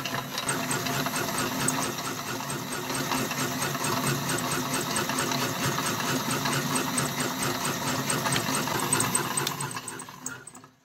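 Electric meat grinder motor running steadily as it forces coloured powder through the grinder plate, then switched off near the end and running down to silence.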